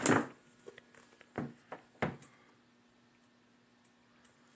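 Handling noise from a pair of Air Jordan 6 sneakers being moved about on a wooden table: a few light knocks, the clearest about a second and a half and two seconds in, with small ticks between.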